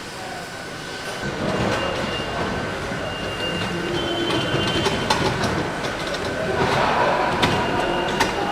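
Factory-floor machinery running with a steady whine, growing louder about a second in, with scattered clicks and clanks.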